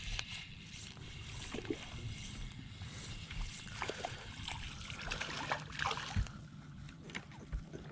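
Faint small splashes of a hooked crappie thrashing at the water's surface as it is reeled in on a spinning reel, with light scattered ticks over a low hum of water.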